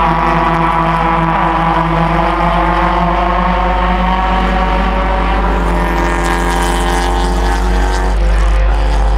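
A pack of Ford Fiesta race cars running at racing speed, several engines sounding together with their pitch sliding down as they pass and draw away.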